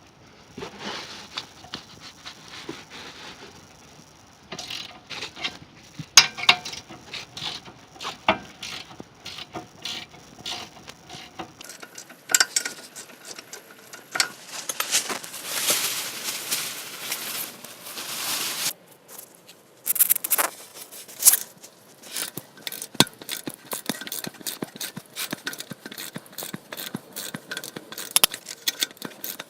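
Hand tools working on a car's rear brake: metal clicks and knocks, a stretch of scraping in the middle, and a fast run of ratchet-like clicking toward the end.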